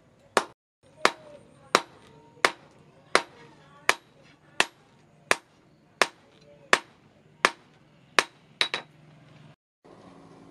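Hand hammer striking a red-hot leaf-spring blade on a steel-post anvil, with sharp, evenly paced blows about one every 0.7 seconds and a quick double blow near the end. After a cut, a steady low hum takes over.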